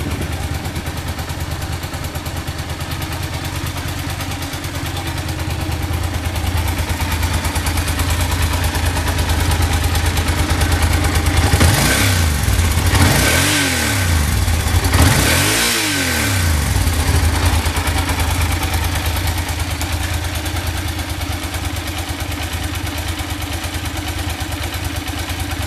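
Yamaha TDM900's parallel-twin engine idling steadily through its dual silencers, blipped twice about halfway through, each rev rising and falling back to idle.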